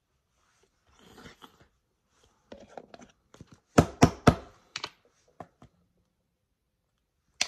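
Close handling noises from hands working with skincare items near the microphone: a soft rustle about a second in, then scattered small clicks and three quick loud knocks around the middle, and another sharp knock near the end.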